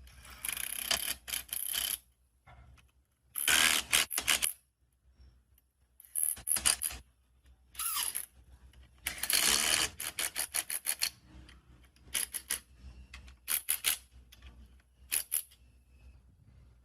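Restored hydraulic floor jack being worked: about eight bursts of metallic clicking and scraping, one to two seconds each, with quiet gaps between, one burst near the middle a rapid run of clicks.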